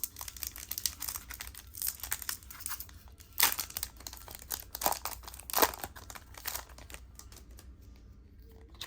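Foil Pokémon booster pack wrapper crinkling and tearing as it is opened, with a few louder sharp rips in the middle, then quieter handling near the end.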